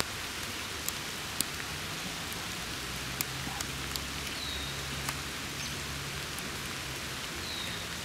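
Steady rain falling in woodland, with scattered sharp ticks of individual raindrops.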